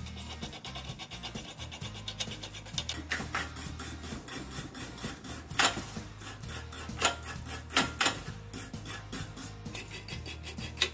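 Small steel wire brush scrubbing the corroded terminals of a PTAC electric heater coil in quick back-and-forth scraping strokes, a few of them louder. Background music plays underneath.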